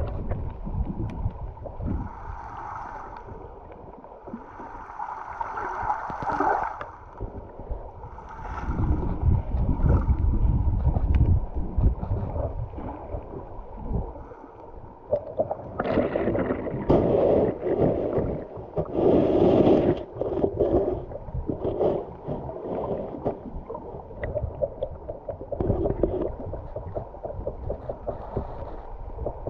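River water heard underwater: a muffled rumble and gurgle of the flowing current that swells and eases, with a busier stretch of bubbling about halfway through.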